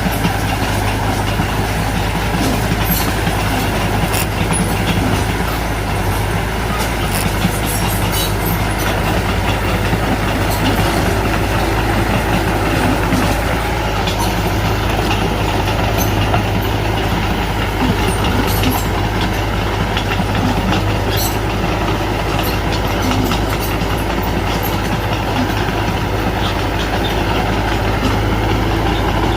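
Small Mitsubishi BD2F crawler bulldozer's diesel engine running steadily under work, with scattered short metallic clanks from its steel tracks.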